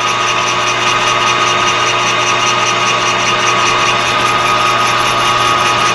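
Metal lathe running under a facing cut across a half-inch plate: a steady motor and gear whine with a faint pulsing hiss several times a second.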